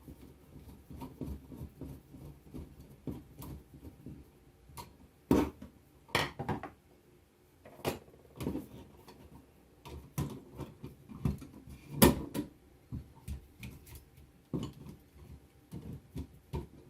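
Screwdriver working the terminal screw of an old electrical wall outlet to free a wire: an irregular run of small metallic clicks and scrapes, with one louder click about twelve seconds in.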